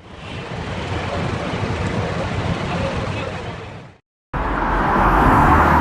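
Edited ambience sound effects with no music: a steady rumbling rush fades in and then fades out after about four seconds. After a brief gap, a louder, brighter rush cuts in abruptly.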